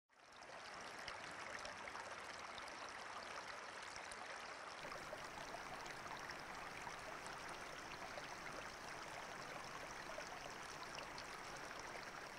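River water lapping and trickling at a rocky shoreline, a steady, low wash of small splashes that fades in quickly at the start.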